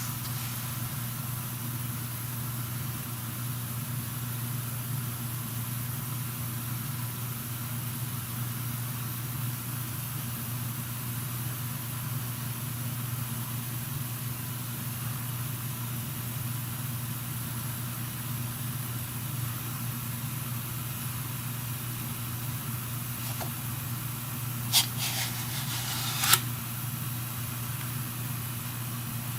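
A steady low hum with an even background hiss, broken by two short sharp clicks about a second and a half apart near the end.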